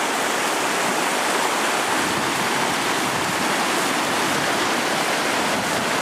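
Muddy floodwater rushing and churning as it pours over an overflowing river embankment, a steady, even rush of water.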